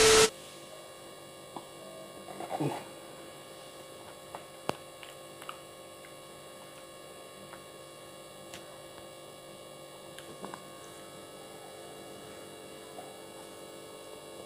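Steady faint electrical mains hum, with a few faint clicks and a short soft rustle about two and a half seconds in. A loud burst of TV-static noise with a steady test tone cuts off right at the start.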